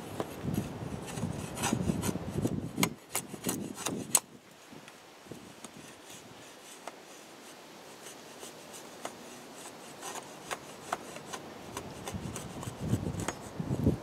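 A machete blade shaving down a stick of wood to make a feather stick: rasping scrapes with several sharp clicks in the first few seconds as the edge catches. The scraping then goes quieter with scattered ticks, and grows louder again near the end. The wood is knotty, with fibre that the carver finds poor for feathering.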